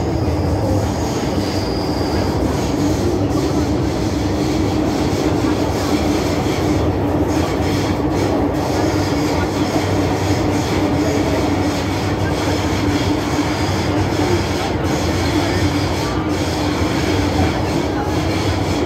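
Inside an MTR M-Train metro car running through a tunnel: steady rumble of wheels on rail and running gear, with a constant hum and faint high-pitched wheel squeal.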